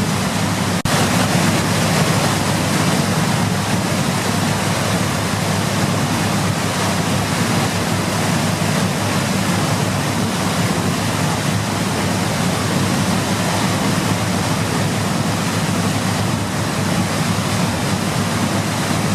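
Steady rushing water as a continuous white-noise hiss, even and unchanging, with a brief dip about a second in.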